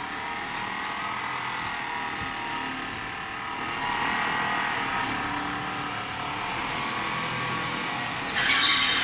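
A tank polishing machine's grinding head runs steadily: its electric motor drives the abrasive wheel, with a faint wavering whine. A brief, louder rush of noise comes near the end.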